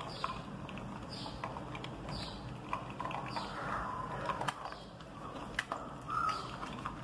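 Pit bull puppy eating kibble from a metal bowl, with irregular small crunches, clicks and scrapes as it chews and its muzzle and teeth knock the food against the bowl.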